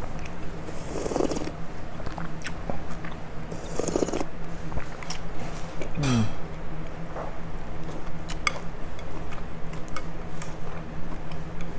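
Close-up eating sounds of a pho meal: chopsticks and a spoon clicking against a ceramic bowl, two short slurps about one and four seconds in, and chewing, with a brief falling hum of the voice about six seconds in. A steady low hum runs underneath.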